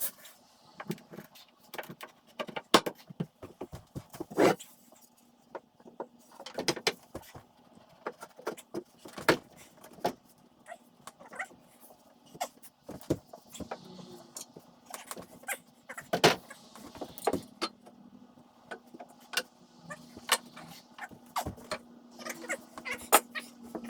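Irregular knocks and clatter of wooden railing parts being handled and fitted together, some sharp and loud, over a steady low hum.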